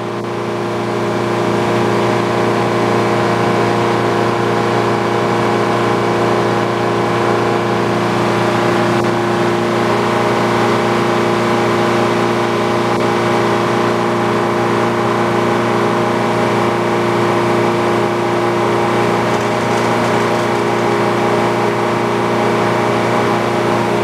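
Manual circular sawmill running steadily, its large circular blade spinning free between cuts with the power unit driving it, a constant hum of several steady tones.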